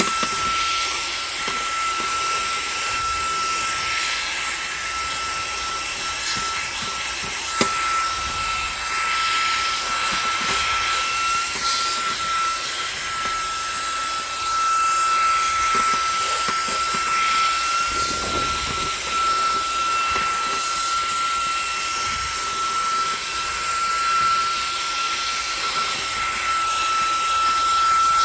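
Xiaomi mini cordless handheld vacuum cleaner running steadily: a constant high motor whine over a rush of air, with a few small knocks as the nozzle touches the surface.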